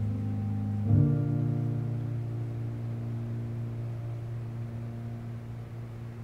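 Piano playing the closing chords of a piece: a low chord struck about a second in and left to ring, fading slowly away.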